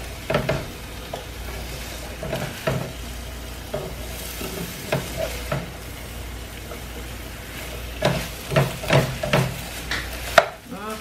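Chicken and broccoli sizzling in a frying pan while a utensil stirs them, scraping and knocking against the pan, with a quicker run of stirring strokes about eight to ten seconds in and one sharp tap just before the end.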